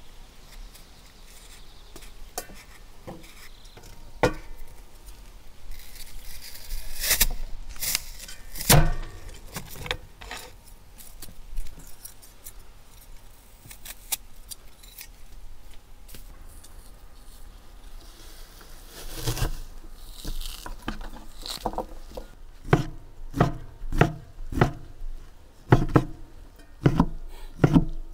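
Hand food preparation: scattered knife clicks and scrapes against fruit and steel bowls, then in the last few seconds a knife chopping steadily on a cutting board, about two cuts a second.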